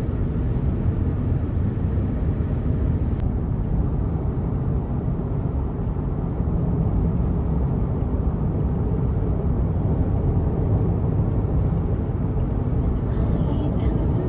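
Steady low rumble of a car in motion: road and engine noise.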